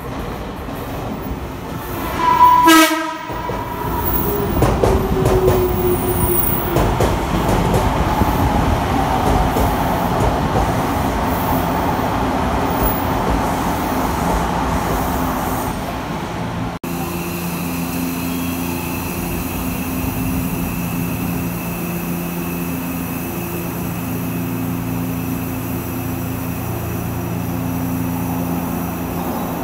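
Odakyu electric commuter train pulling into a station. It gives a short horn blast about two to three seconds in, then the cars rumble past with a falling whine as the train slows. After a cut, the stopped train gives a steady hum.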